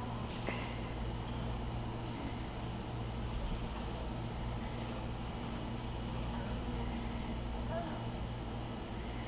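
Insect chorus: a steady, high-pitched trill that carries on without a break, over a low steady rumble.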